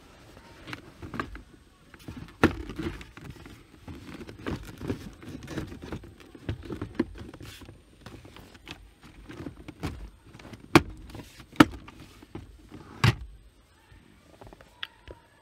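Hands handling the plastic glove box and dashboard trim of a car: a run of irregular clicks, rattles and rubbing, with a few sharper knocks, the loudest in the second half.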